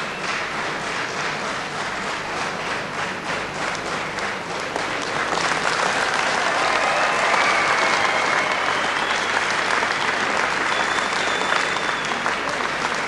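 Audience applauding, the clapping growing louder about five seconds in.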